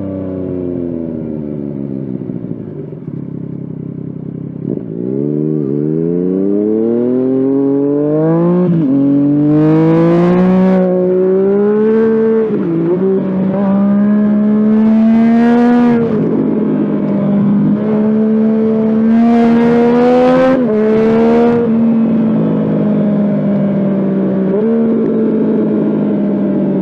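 Yamaha FZ-09/MT-09 inline three-cylinder engine, heard from the riding bike. Its pitch falls as the bike slows, then it pulls hard up through the gears, with upshifts marked by sudden pitch drops about every three to four seconds. It settles to a steady cruise, with one more short burst of throttle.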